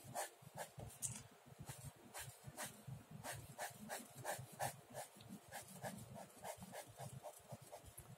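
Ballpoint pen sketching on sketchbook paper: quick, light scratching strokes, about three a second.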